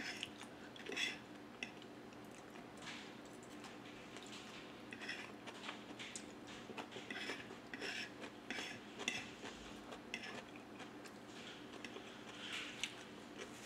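Metal fork scraping and clinking against a plate while scooping up macaroni salad, with soft chewing in between: a quiet, irregular run of small clicks and scrapes.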